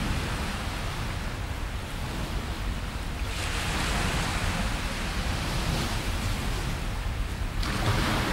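Small sea waves breaking and washing onto the beach, surging louder about three seconds in and again near the end, over a steady low rumble.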